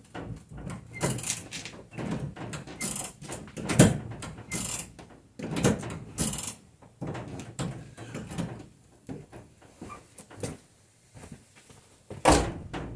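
Irregular mechanical clicks, knocks and rattles as the handbrake of a 1995 Holden Rodeo is pulled on and released, testing its newly replaced handbrake cable.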